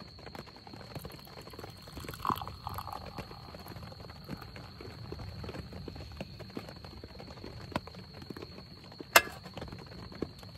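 Beer poured from a can into an enamel mug, over a faint patter of small ticks like rain on the tent. About nine seconds in there is one sharp knock.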